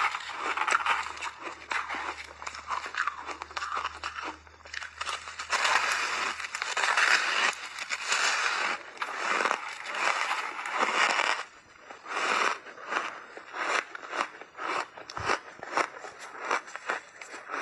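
A person biting and chewing big chunks of crunchy refrozen ice close to the microphone. The crunching is dense and louder through the middle, then breaks into separate crisp crunches in the last few seconds.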